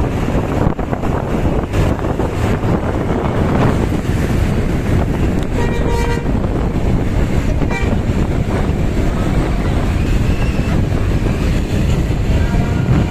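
Loud, steady bus engine and road noise, with a brief horn toot about six seconds in.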